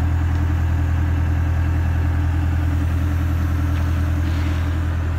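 Engine of the machine hoisting the tank on chains, idling steadily with an even low drone.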